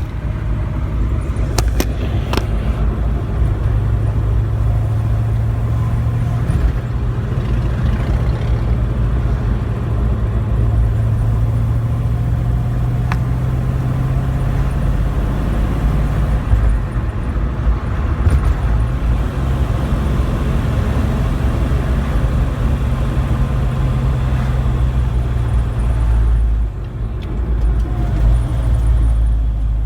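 Car engine running under way with road noise, heard from inside the cabin through a phone's built-in microphone lying in the cup holder. The engine hum holds fairly steady for long stretches, with a few sharp clicks near the start and a brief drop in level near the end.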